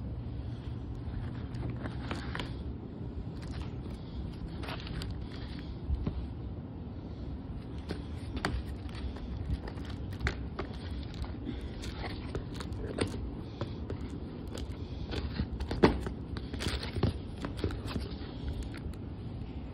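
Cardboard box being opened by hand: flaps pulled back, scraped and bent, with tape and cardboard crackling and scattered sharp clicks and knocks, the loudest knock about three-quarters of the way through.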